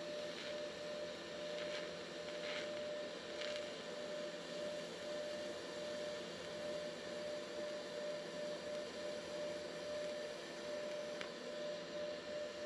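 TIG welder arc running continuously, a steady hum with a constant tone and hiss, as a wastegate flange is welded onto a turbocharger exhaust housing.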